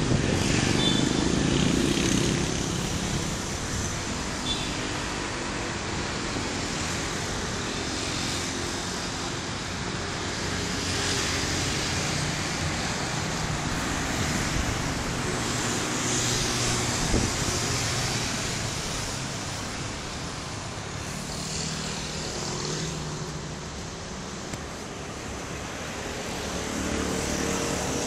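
Steady road-traffic noise, with vehicle engines running and passing, rising and falling gently in level.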